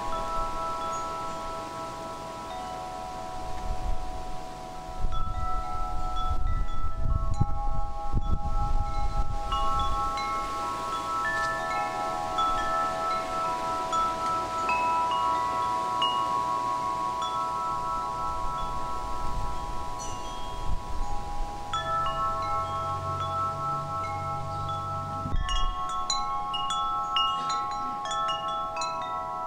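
Wind chimes ringing: many overlapping, long-held metallic notes with short higher pings scattered among them. A low rumble comes in at about four to ten seconds and again at about twenty-two to twenty-five seconds, and there is a single knock about twenty-five seconds in.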